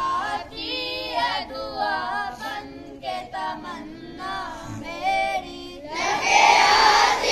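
Schoolboys singing a dua (prayer poem) together in a chant-like melody, their voices wavering in pitch in short phrases. About six seconds in, the whole assembly of children joins in much louder, many voices in unison.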